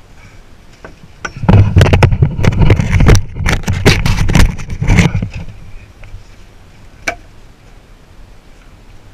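Handling noise from a GoPro camera being moved, its housing rubbing and bumping against fabric: about four seconds of loud scraping and knocking, then a single sharp click about seven seconds in.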